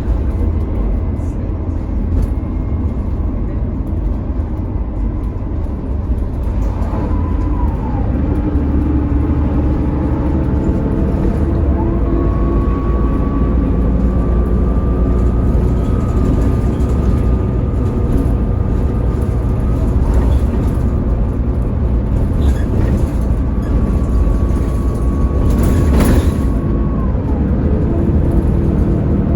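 Mercedes-Benz Citaro O530 bus running, with a steady low rumble and the whine of its ZF automatic gearbox. The whine climbs in pitch from about eleven seconds in, holds, and drops away again near the end.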